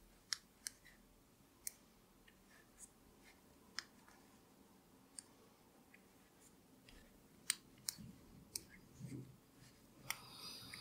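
Faint, irregular clicks of 9 mm metal circular knitting needles tapping together as stitches are purled.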